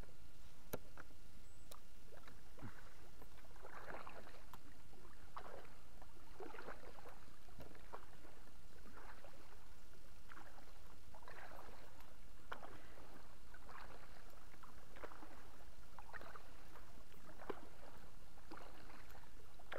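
Kayak paddle strokes on calm water. The paddle blade dips in and pulls through with a splash and drip of water, roughly one stroke a second, starting a few seconds in.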